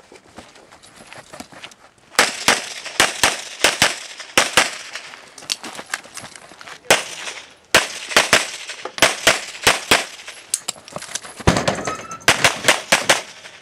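Pistol fire in a practical shooting course of fire: starting about two seconds in, rapid strings of shots in quick succession, broken by short pauses of about a second between strings.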